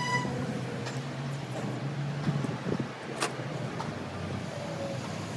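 Steady low hum of distant road traffic, with a single sharp click about three seconds in.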